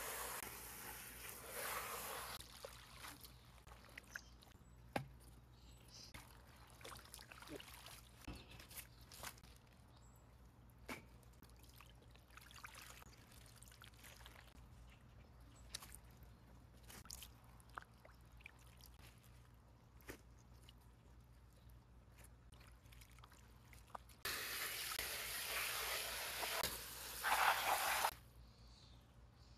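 Garden hose spray nozzle hissing water into a metal bowl of leafy greens for the first couple of seconds and again for about four seconds near the end. In between, quieter splashing and scattered small knocks as the leaves are swished by hand in the water.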